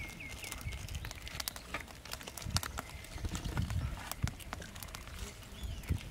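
Small plastic sauce sachets being torn open and squeezed by hand: scattered sharp crinkles and clicks, with some low bumps of handling. A bird chirps a quick run of notes at the very start.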